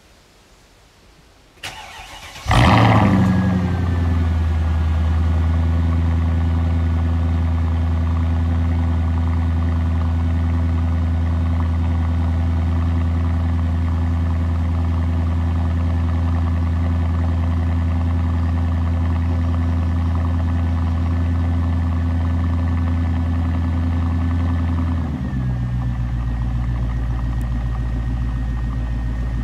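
Mercedes-Benz CLS 500 V8 being started. The starter cranks briefly, the engine catches with a loud flare of revs, then settles into a steady fast idle, which drops to a lower idle about 25 seconds in.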